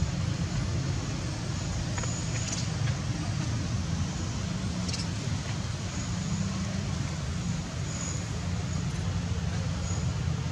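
Steady low rumble under a constant hiss of outdoor background noise, with a few faint clicks about two and five seconds in.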